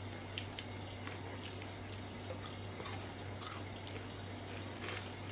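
Faint, irregular crunches and clicks of someone chewing fried banana-stem chips, over a steady low hum.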